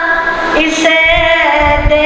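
A boy singing a naat solo, unaccompanied, holding long notes that waver in pitch, with a short break a little under a second in.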